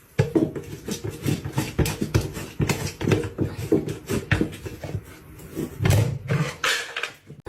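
A pet animal making a rapid, irregular run of noises mixed with knocks and rustling, loudest about six seconds in.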